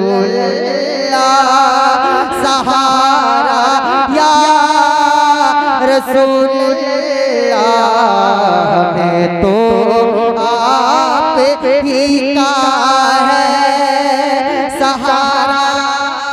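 A man singing a naat unaccompanied into a microphone: one long, ornamented vocal line whose pitch wavers and curls up and down without pause.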